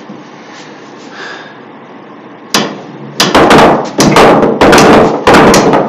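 Pool balls being struck one after another in a rapid machine-gun shot: a series of loud, sharp clacks of cue on ball and ball on ball, about two a second. The clacks start about two and a half seconds in, after a short stretch of quiet room noise.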